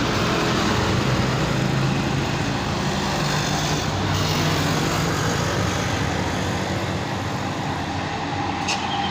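Large bus's diesel engine running steadily as the bus comes down the steep hill close by, with a low engine note over tyre and road noise. A brief hiss near the end.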